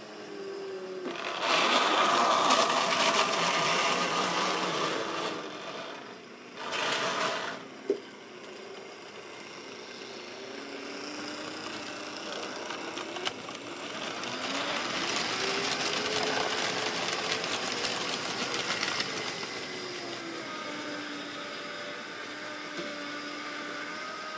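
Model railway locomotive running along the track: the whirring whine of its small electric motor with the rattle of the train, the pitch rising and falling. It gets louder twice as the train passes close, a few seconds in and again in the second half, and there is a sharp click about eight seconds in.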